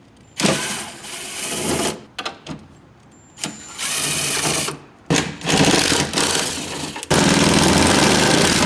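A handheld power tool, such as a cordless drill or driver, running in four short bursts about a second or two each as fasteners are driven. The last burst is the longest and steadiest.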